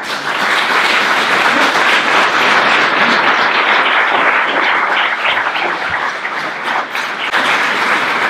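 Audience applauding, starting suddenly and going on steadily.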